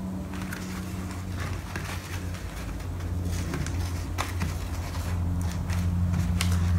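Fingers peeling and picking the old black covering off a door card's backing board, giving scattered faint crackles and ticks over a steady low hum that grows a little louder about halfway through.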